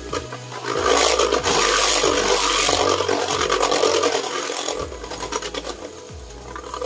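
Beyblade spinning tops whirring and scraping against each other and the walls of a plastic stadium. A loud rasping grind sets in about a second in and fades away after about four seconds.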